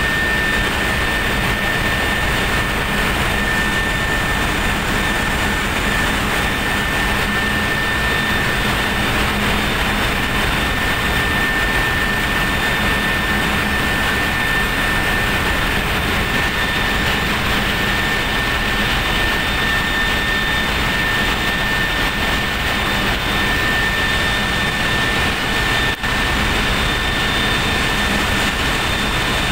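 Steady, loud noise of running machinery with a constant high whine over it, unchanging throughout.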